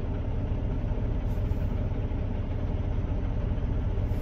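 Semi truck's diesel engine running steadily at a low, even idle-like hum.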